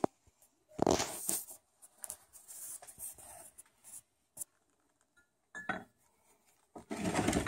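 Handling noise from soft plastic stickbaits being moved about on an aluminium injection mould: several short bursts of rubbing and scraping, the loudest about a second in and again near the end, with quiet gaps between.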